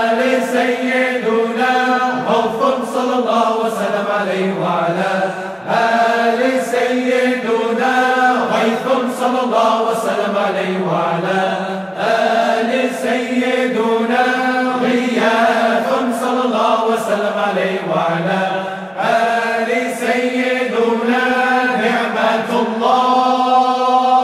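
Voices chanting Islamic zikr in Arabic, a long melodic line of salawat upon the Prophet sung over a steady low held note.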